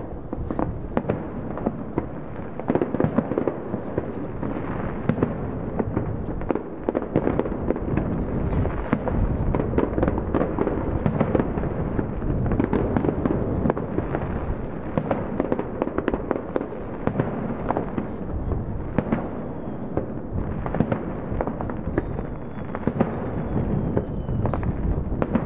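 Fireworks display: a continuous barrage of booms and crackling bursts going off in quick succession.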